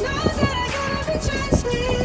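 Background music: a high, wavering melody line over a beat.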